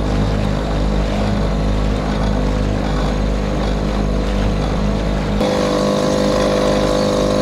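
Small Tohatsu outboard motor running steadily at speed, driving an inflatable dinghy. Its tone changes about five seconds in.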